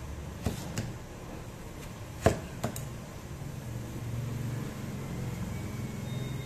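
A large kitchen knife cutting through watermelon and knocking against a wooden cutting board: about four sharp knocks, the loudest a little past two seconds in, over a low steady hum.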